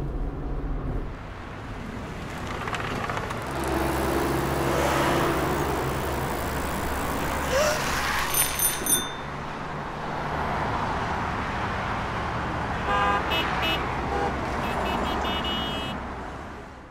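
Street traffic with car engines running steadily. Three quick, high ringing tones come a little after halfway, and a run of short beeping tones follows later.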